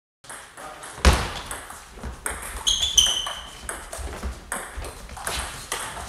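Table tennis rally: the celluloid-type plastic ball clicking off the bats and bouncing on the table, some hits ringing with a sharp ping. A heavy thud about a second in is the loudest sound.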